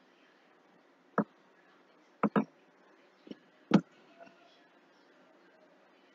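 Short, sharp clicks of a computer mouse, about six, with a quick double click a little over two seconds in and the loudest click near the middle.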